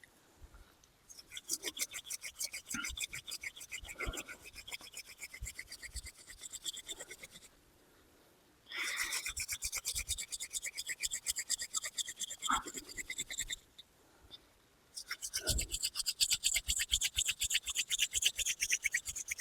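Wooden hand drill spindle spun rapidly back and forth between the palms on a hearth board: a fast, even rasping squeak of wood on wood, in three long runs with short pauses between. The squeak is the friction working up hot dust and smoke toward an ember.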